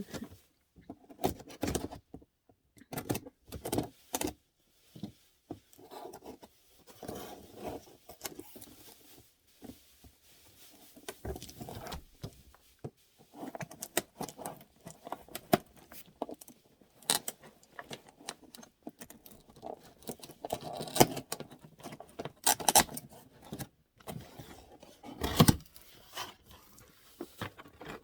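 A laptop's cardboard box and packaging being opened and handled by hand: irregular rustling and scraping with scattered clicks and knocks, a few louder knocks in the second half.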